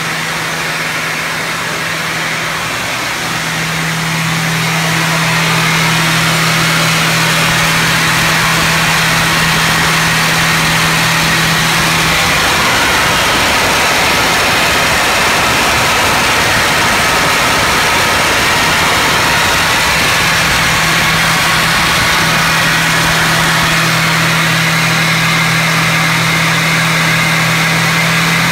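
The engine of an overhauled ACE 600-1 unit running steadily under test, a constant hum with an even tone over a broad rushing hiss. It gets louder about four to five seconds in, then holds level.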